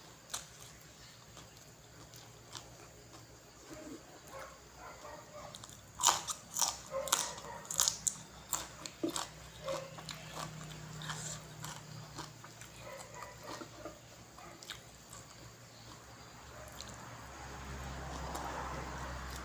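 A person eating close to the microphone: chewing and crunching, with a cluster of sharp mouth clicks and smacks about six seconds in.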